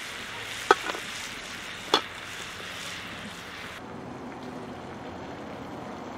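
Fish frying in a pan with a steady sizzle, and two sharp clicks of a utensil against the pan, about one second apart. The sizzling cuts off abruptly about four seconds in, leaving a duller, quieter hiss.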